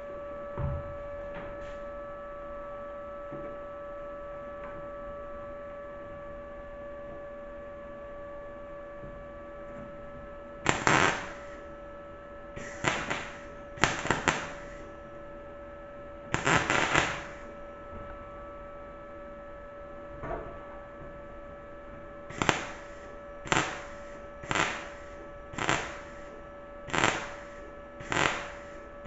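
Steady hum, then short bursts of MIG welding crackle from about ten seconds in: a few irregular tacks, then an evenly paced run of short welds about one a second, as in stitch welding on sheet metal.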